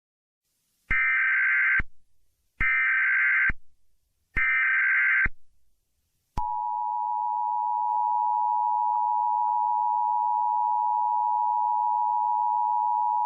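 Emergency Alert System tones. First come three short bursts of SAME header data tones, each about a second long with brief gaps. About six seconds in, the steady high-pitched two-tone EAS attention signal starts and holds.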